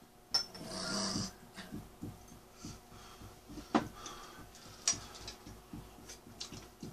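Hot-pot eating sounds: a slurp near the start, then chewing and metal chopsticks clicking against a bowl and the pot.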